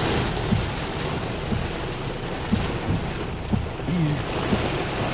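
Heavy rain pouring steadily on a moving car, heard from inside the cabin over a low road rumble.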